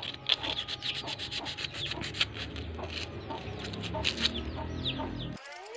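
Sandpaper rubbed back and forth along a thin iron rod in quick rasping strokes, sanding off dirt and rust to bring the bare iron up to a silver colour. Chickens cluck in the background. The sound cuts off abruptly near the end.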